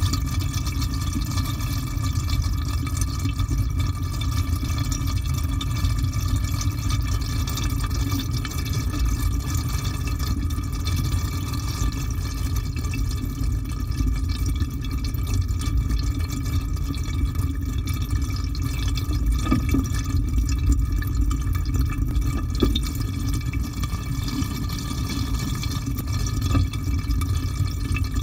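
Water pouring into the drum of a Samsung top-loading washing machine as it fills at the start of a wash cycle, heard from inside the drum: a steady rush of water with a deep rumble under it.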